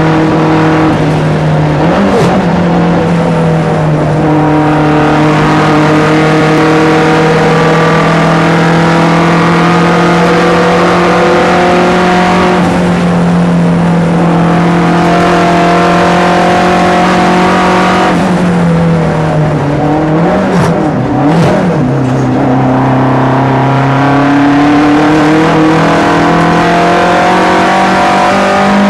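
Saab 900 race car's turbocharged four-cylinder engine heard from inside the cabin, running steadily at high revs for a long stretch. About two-thirds of the way through, the pitch drops and wavers as the driver lifts off and shifts, then climbs again under throttle.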